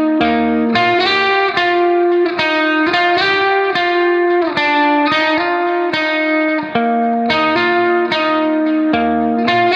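Background music: a guitar playing chords in a steady rhythm.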